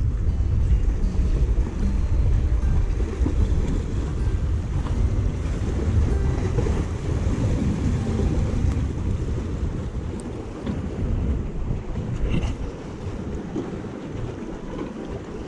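Wind buffeting the microphone over choppy sea waves washing against the concrete tetrapods of a breakwater; the wind eases over the last few seconds.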